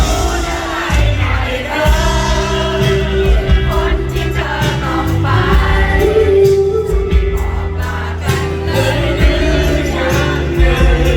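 Live pop band music with a singer, loud and steady, with a heavy bass line and drum beat.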